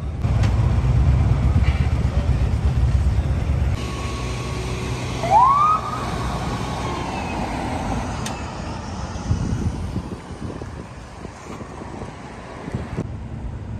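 Low rumble of vehicle engines and traffic, heaviest in the first few seconds. About five seconds in, a police car's siren gives one short rising whoop.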